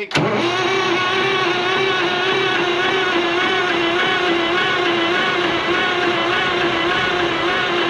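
Starter motor cranking a 1988 Kenworth K100E's Cummins Big Cam IV 400 diesel without it firing: a sharp click as the starter engages, then a steady whine that wavers in a regular rhythm. The engine is being turned over to build oil pressure after nine years of sitting, and no oil pressure shows yet.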